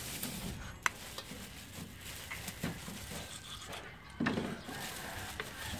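Cleaver cutting meat on a round wooden chopping block, with a few sharp knocks of the blade on the wood and a heavier chop just after four seconds.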